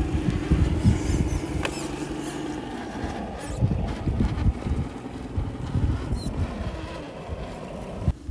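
1/10-scale RC rock crawlers' electric motors and geared drivetrains whining, with tyres crunching and scrabbling over gravel and rocks. A steady motor hum is clearest in the first couple of seconds.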